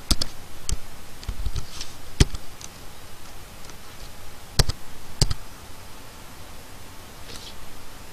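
Computer keyboard being typed on: scattered, irregular keystroke clicks, a few of them sharper than the rest.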